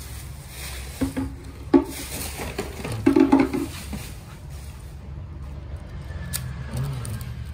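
A car wiring harness and its plastic multi-pin plug connectors being handled against a metal head-unit casing: rustling wire loom and plastic clicks, with sharp clicks about a second and nearly two seconds in and a louder rustling handful around three seconds.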